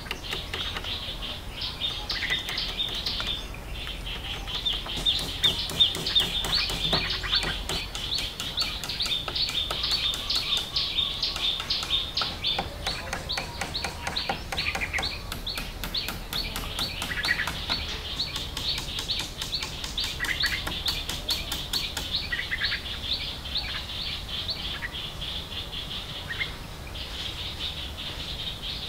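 High chirping chorus of jungle wildlife: a rapid, even pulsing that grows louder and denser through the middle, with a few short separate calls now and then.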